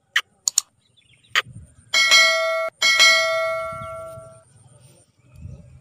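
Subscribe-button animation sound effect: a few quick mouse clicks, then a notification bell chime rung twice, the first cut short and the second fading out over about a second and a half.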